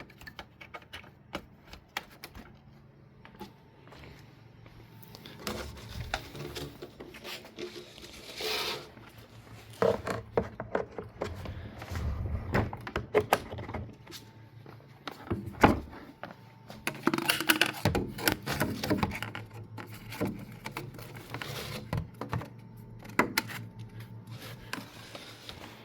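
Handling noises from a Ridgid wet/dry shop vacuum being picked up and moved about: scattered knocks, clicks and scraping, with a few heavier thuds in the middle. The vacuum's motor is not running.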